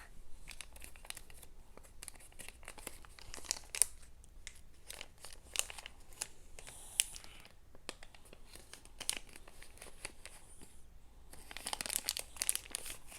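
Toy packaging bags being torn open and crumpled by hand: an irregular run of crackles, busiest near the end.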